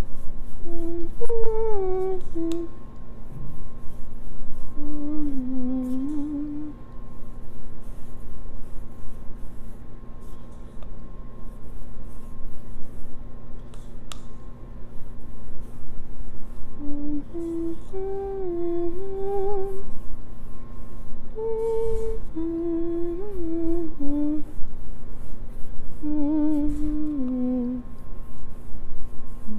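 A woman humming a slow, wandering tune to herself in short phrases with pauses between them.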